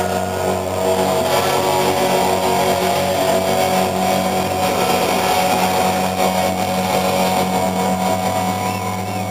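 Amplified electric guitars left ringing and feeding back through the stage amplifiers as a live metal song ends: a steady low drone with several held higher tones above it.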